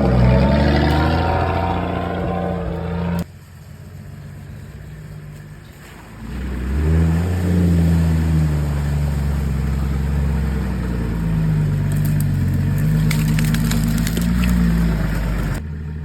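Off-road 4x4 SUV engine revving and pulling under load, its pitch rising and falling. The sound drops off abruptly about three seconds in, stays quieter for a few seconds, then the engine climbs again and keeps working.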